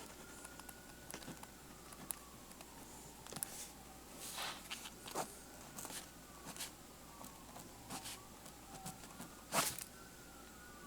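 Faint scratching of a 0.5 mm ballpoint pen tip writing on paper, with a few sharper scrapes or clicks in between.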